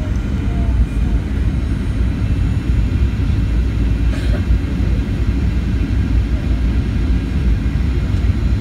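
Cabin noise inside a Southwest Boeing 737 airliner in flight: the steady, mostly low-pitched rumble of engine and air noise.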